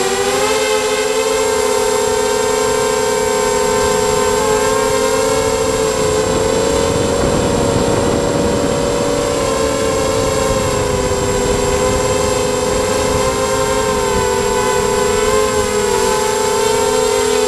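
Emax Nighthawk 250 quadcopter's brushless motors and propellers whining steadily, the pitch wavering slightly with throttle, heard from the quad's own onboard camera. A rush of wind noise swells about halfway through during a fast, low pass.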